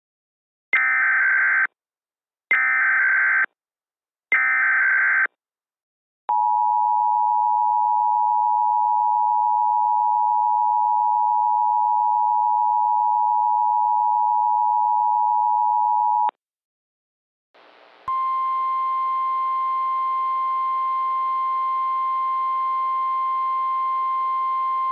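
Emergency Alert System tones. Three harsh warbling data bursts of about a second each (the SAME header) come first. The two-tone EAS attention signal follows, held steady for about ten seconds. After a short gap, a single steady weather-radio alert tone sounds over radio hiss.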